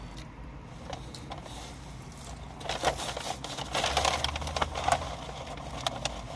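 Paper fast-food packaging rustling and crackling as fries are taken from it, in irregular bursts starting about three seconds in, over a low steady hum.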